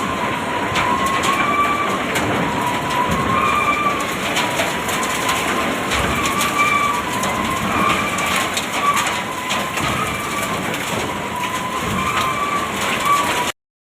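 Bucket elevator running with a steady mechanical clatter and clicking, and a high squeal that comes back about every one and a half to two seconds.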